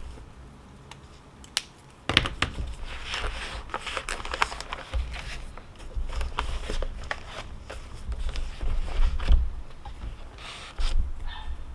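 Close handling noise: rustling and crinkling with many sharp clicks and low thumps, starting about two seconds in and dying down near the end.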